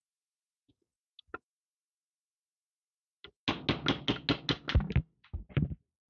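Rapid sharp metal knocks, about six a second, then three more near the end, as a steel blade is worked against a toy truck wheel's axle to free the wheel. A couple of light clicks come first.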